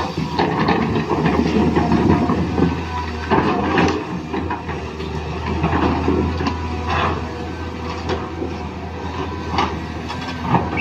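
Small electric motors and plastic gears of a remote-control toy construction vehicle running, with a steady hum under irregular rattling and clicking.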